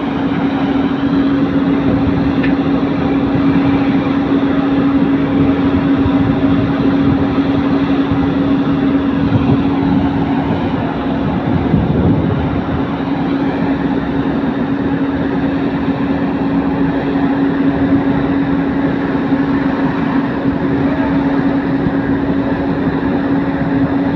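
Heavy diesel machinery running steadily, a constant engine drone with a strong steady hum.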